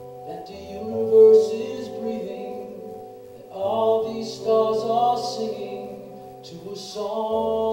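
Live band playing a slow song without lyrics: held melodic notes over a steady low accompaniment, with the melody shifting to new notes about three and a half seconds in and again near the end.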